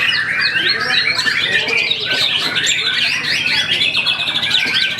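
Songbirds singing rapid, varied chirps and trills without a break.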